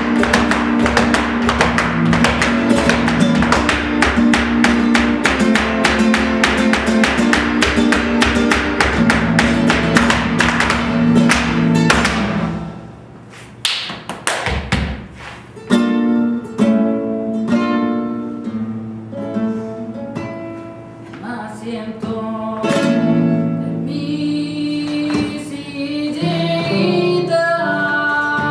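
Flamenco soleá: rapid stamping footwork on a wooden stage over a flamenco guitar. The footwork stops about twelve seconds in, and the guitar plays on with slower plucked phrases and a few single stamps.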